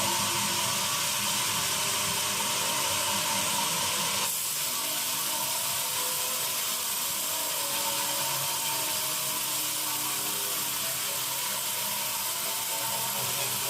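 Sawmill band saw running through teak wood, a steady hiss-like machine noise that shifts slightly about four seconds in.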